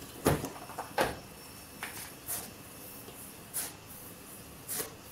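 A utensil knocks twice against a stainless steel cooking pot, then a plastic bag of sugar rustles a few times as sugar is poured into the pot.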